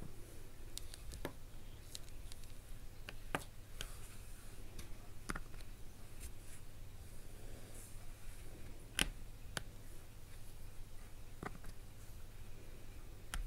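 Round resin diamond-painting drills being pressed one at a time onto the sticky canvas with an applicator pen: irregular light clicks and pops, a louder click about nine seconds in.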